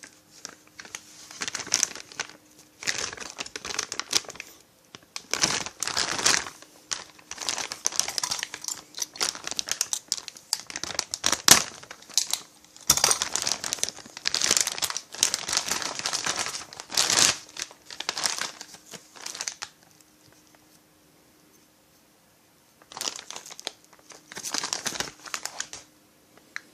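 Packaging crinkling and tearing in irregular bursts as chainsaw kit parts are unwrapped, with a quiet pause about three quarters of the way through before one more stretch of crinkling.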